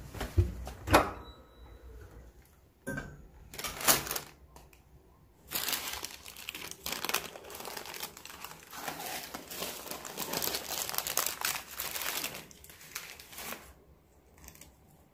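A few sharp clicks and knocks, then several seconds of steady crinkling and rustling, like a wrapper or sheet being handled, which dies away near the end.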